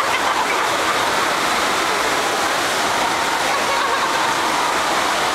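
Steady rush of water from an indoor surf simulator: a fast sheet of pumped water pouring over the padded ride surface. Faint voices sit underneath.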